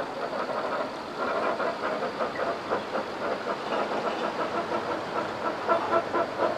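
Heavy-haul truck and multi-axle low-loader trailer rolling slowly past under a heavy load, an uneven mechanical noise with many small knocks over a low engine hum.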